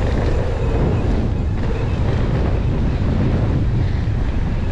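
Loud, steady wind buffeting on the rider's camera microphone during a mountain bike descent, with the bike rolling over the dirt trail underneath.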